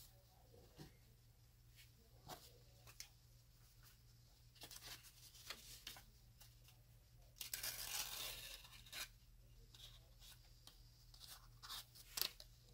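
Faint rustling and rubbing of a cloth worked by hand, with scattered light handling clicks. A louder stretch of rustling comes a little past the middle, over a steady low hum.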